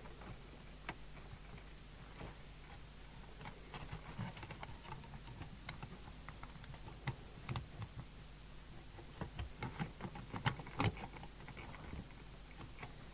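Light clicks and taps of the small plastic and metal parts of a CB radio being handled and fitted back together during reassembly, sparse at first and coming thicker from about four seconds in, loudest near the end. A steady low hum runs underneath.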